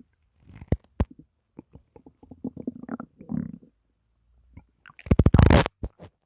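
Human stomach gurgling and rumbling: a few scattered pops, then a bubbling run of low gurgles about two seconds in, and a loud, rapid burst of gurgling near the end.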